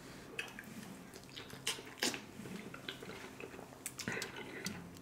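Close-miked wet mouth sounds of eating king crab meat coated in cheesy Alfredo sauce: irregular sticky clicks, smacks and slurps, the sharpest about two seconds and four seconds in.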